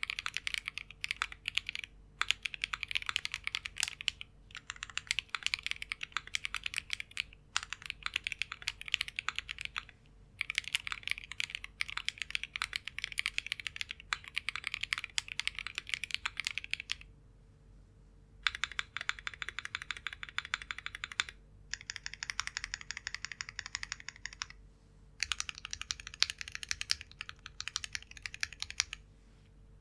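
Custom mechanical keyboard being typed on quickly: a Shiori R2 with an aluminium plate, lubed WS Onion switches and JTK HSA keycaps. After a pause about 17 s in, the strikes turn sparser and come in separate runs, as the modifier keys and stabilised larger keys are pressed.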